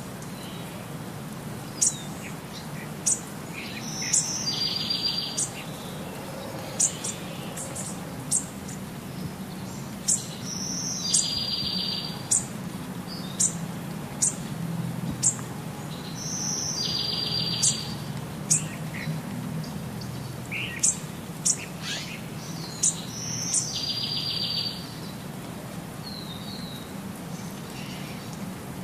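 Birdsong: a short high phrase ending in a fast trill, repeated about every six seconds (four times), with quick sharp high chirps in between.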